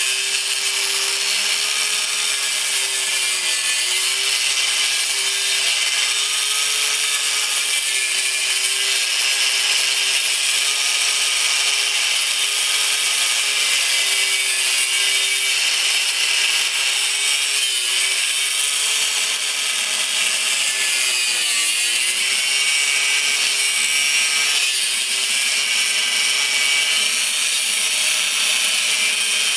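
A 4.5-inch electric circular saw cutting through a transmission shift shaft, its motor running continuously at high speed with a loud grinding hiss. The motor pitch dips briefly several times, most deeply about two thirds of the way through, as the blade bites under load.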